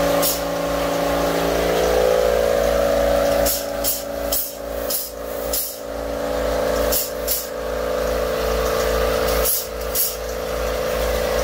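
Powered epoxy dispensing gun at work, injecting epoxy into rotted overhead wood. Its steady motor hum is broken about ten times by short, sharp hisses.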